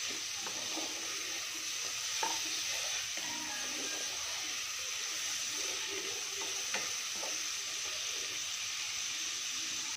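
Chopped onions, green chillies and curry leaves sizzling steadily in hot oil in a kadai while a wooden spatula stirs them, with a few light scrapes and knocks of the spatula against the pan. The onions are being fried until they brown.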